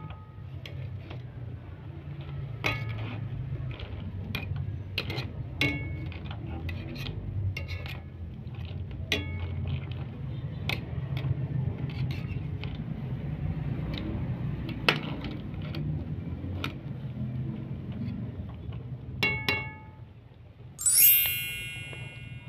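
Cockle shells clinking and knocking in a pot of simmering soup, scattered sharp clicks over a steady low bubbling rumble. Near the end comes a single loud, bright ring that fades over about a second.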